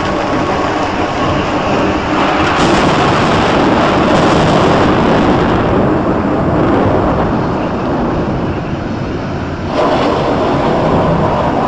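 Thunderstorm sound: a loud, dense rushing hiss of rain with rolling thunder rumble underneath. It swells a couple of seconds in, eases somewhat, then surges again suddenly near the end.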